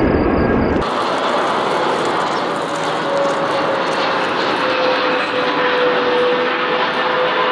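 Wide-body jet airliner's engines on landing approach: a steady jet roar with a high whine that drifts slightly lower in pitch as the plane passes. A deeper rumble cuts off abruptly about a second in, where one clip gives way to the next.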